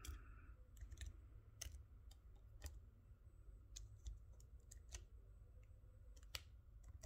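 Faint, irregular key clicks from a Panasonic Toughbook laptop keyboard as a filename is typed, about a dozen taps spread out with pauses between them.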